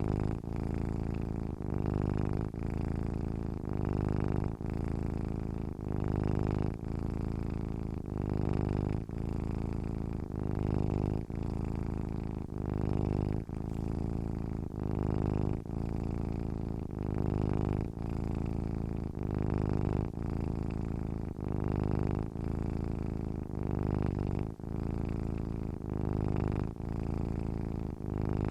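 Domestic cat purring steadily, a low continuous rumble that swells and eases with each breath, about one breath every two seconds.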